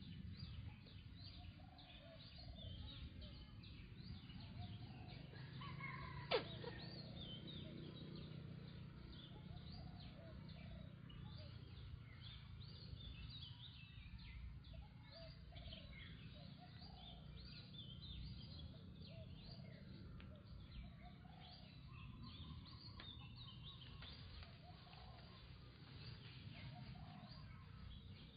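A faint chorus of many birds chirping and calling over a low background rumble, with one sharp click about six seconds in.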